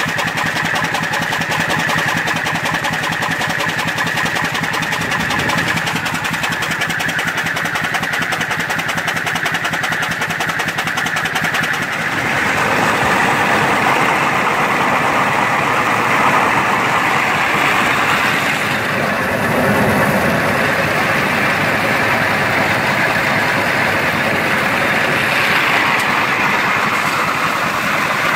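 McCormick-Deering 10-inch Type D feed grinder grinding shelled corn into coarse meal, driven by flat belt from a 5x6 English Iron Works steam engine turning at about 350 RPM; a steady, dense mechanical running. About twelve seconds in it turns louder and brighter.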